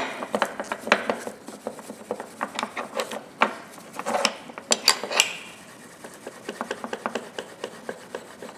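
Steel wool being scrubbed over freshly blued steel locking pliers in quick, uneven strokes, polishing the bluing to even out its colour. A sharp knock right at the start is the loudest sound; the strokes grow lighter in the second half.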